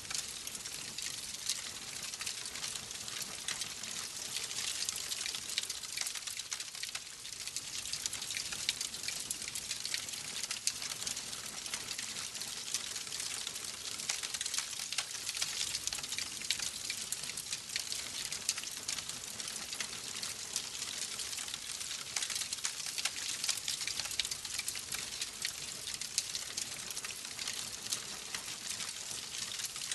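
Burning wood fire crackling steadily: a dense run of small pops and snaps over a soft hiss, with no pause.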